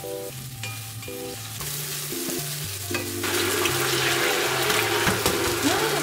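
Chopped green onions frying in oil in a stainless steel pan, a steady sizzle that grows much louder about three seconds in.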